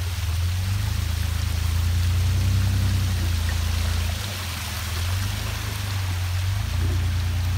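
Muddy creek water running steadily over rock ledges, with a Jeep's engine running underneath as a steady low drone that drops back briefly a little past the middle.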